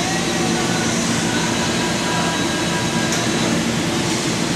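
Steady hiss of compressed air from a spray gun coating a tubular steel frame, over a constant low hum.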